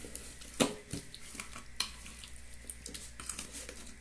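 A few sharp knocks and clinks of bowls being handled at a stainless-steel kitchen sink, over faint kitchen background noise.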